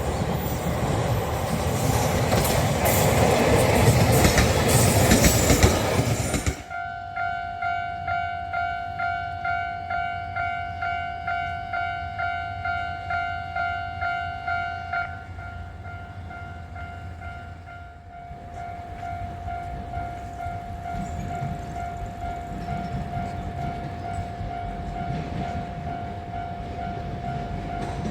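Japanese railway level-crossing alarm ringing: one steady electronic tone pulsing about one and a half times a second. From about two-thirds of the way through, the rumble of an approaching JR commuter train builds under it. Before the alarm, about six seconds in, a loud rushing noise cuts off abruptly.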